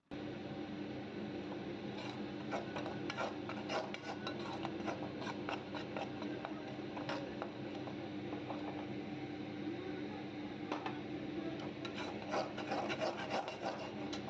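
A ladle stirring and scraping roasted besan around a kadhai, with repeated short scrapes against the pan over a steady hiss, as the flour is kept moving on a low flame.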